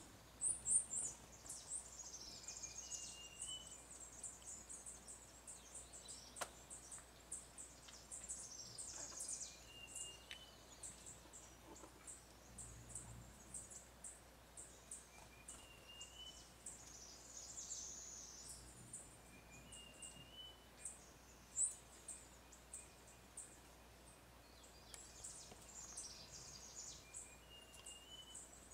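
Faint forest ambience of small birds: many thin, high-pitched chirps and twitters in quick runs, with a short whistled note every several seconds and an occasional faint click.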